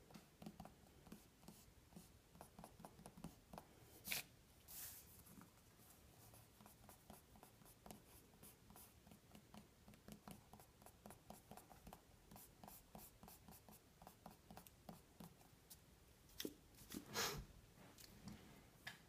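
Faint graphite pencil strokes scratching and ticking on paper, with louder rubbing across the paper about four seconds in and again near the end.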